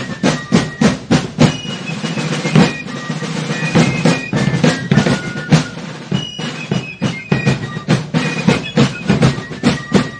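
Music led by drums: a busy run of drum strikes with short, high held notes over them.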